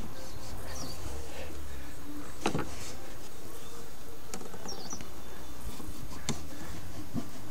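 Cloth rubbing over a car's plastic windshield cowl and wiper arm, with a couple of sharp clicks, one about two and a half seconds in and one about six seconds in, over a steady low rumble.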